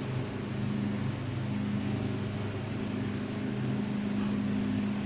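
Steady low machine hum over an even hiss, the sound of the refrigeration and ventilation equipment around a chilled fish display.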